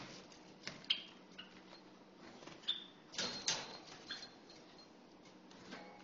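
Java sparrow giving scattered short chirps and sharp clicking notes, with a louder cluster of clicks about three seconds in, over a faint low hum.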